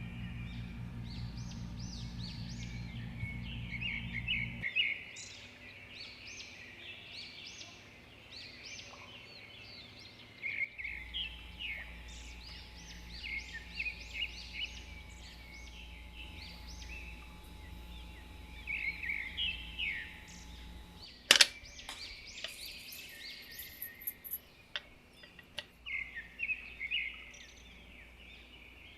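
Birds chirping steadily in many short calls, over a low electrical hum that stops about five seconds in and comes back from about eleven to twenty-one seconds. A single sharp click sounds about twenty-one seconds in.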